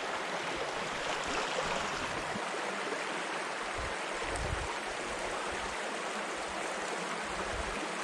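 Shallow stream flowing over stones and gravel, a steady wash of water sound.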